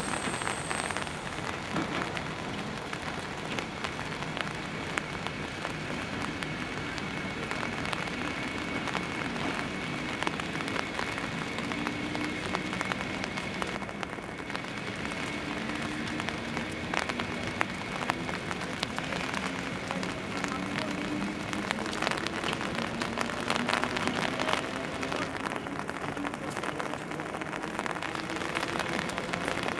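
ER2R electric multiple unit pulling away and accelerating, its traction motor whine climbing slowly in pitch from about a third of the way in, over a steady hiss with scattered clicks.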